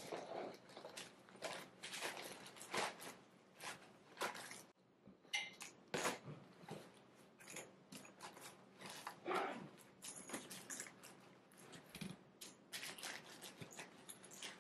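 Black soft-sided fabric suitcase being pressed down and worked shut: a string of irregular rustles, scuffs and clicks from its fabric, frame and fittings, as the overfull case resists closing.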